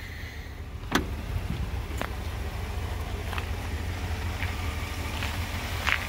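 Jeep Grand Cherokee WJ idling steadily, with a car door shut about a second in and a few lighter clicks after.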